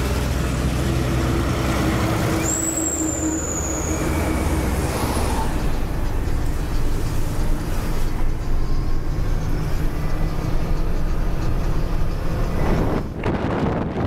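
Heavy diesel trucks running on the road, the steady engine drone and road rumble of loaded self-loader trucks. A brief high whistle about three seconds in; the rumble grows rougher and more uneven after the middle.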